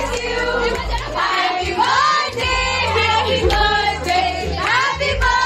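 Background music: a song with singing voices over a bass line and a steady beat.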